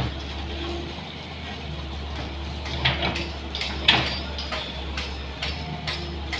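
Daewoo wheeled excavator's diesel engine running steadily while its bucket digs in the trench, with sharp metal knocks and clanks from the bucket and arm, the loudest about three and four seconds in.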